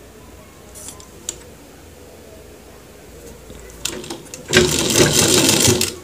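Sewing machine running a short seam through trouser fabric for about a second and a half near the end, after a few light clicks as the cloth is set in place.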